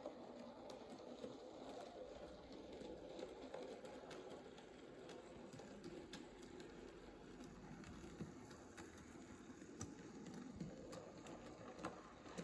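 Faint running of a small home-built Nm-scale model steam locomotive and its short train circling a test track: a low steady motor and wheel hum with scattered light clicks from the wheels on the rails.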